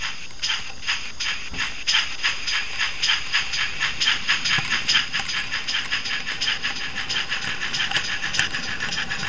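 Model Pannier tank locomotive's sound decoder playing steam exhaust chuffs through its small speaker. The beat speeds up steadily as the locomotive gathers speed, from about two chuffs a second to five or six.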